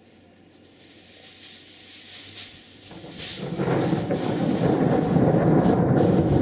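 Rolling thunder building from a faint rumble to a loud, sustained rumble about three to four seconds in.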